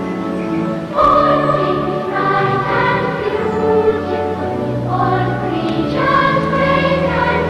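Music: a choir singing held chords that change every second or two, growing louder about a second in.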